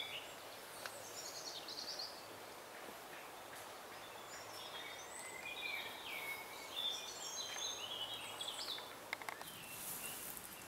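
Woodland birds singing: many short whistled phrases and trills, one after another, over a faint steady hiss. A few soft clicks and a rustle come near the end.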